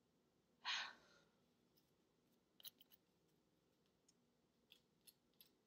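Faint, scattered ticks and scrapes of a nail file working on fingernails, with one louder, short rasp less than a second in.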